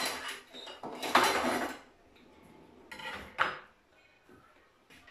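Metal cutlery rattling in a kitchen drawer as a knife is taken out, loudest about a second in. A kitchen drawer then slides shut with a knock about three and a half seconds in.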